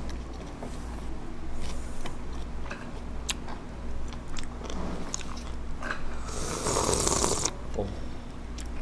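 Close-miked eating of abalone mulhoe, a cold spicy raw-fish soup: chewing and light clicks of metal chopsticks against the bowl, then about six seconds in one loud slurp of the broth lasting just over a second.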